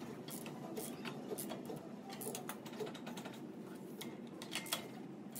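Hand ratchet wrench clicking in quick, irregular runs as bolts are turned at a car's front wheel hub, over a low steady background hum.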